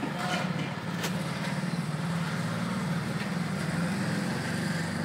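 A steady low drone of an idling engine.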